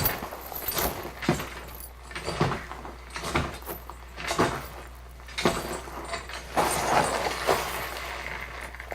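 A run of sharp knocks and clinks, about one a second, each with a short metallic ring, then a longer clattering, jangling stretch about two-thirds of the way in. These are Foley effects being performed.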